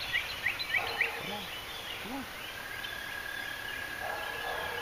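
A bird chirps a quick run of short high notes in the first second. Then, about halfway in, a frog or toad starts a long, steady high trill that keeps going.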